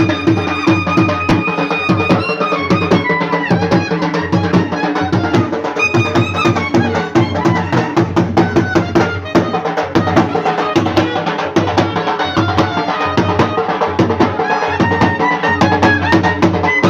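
Music with a fast, steady drum beat under a melody, in a traditional folk style.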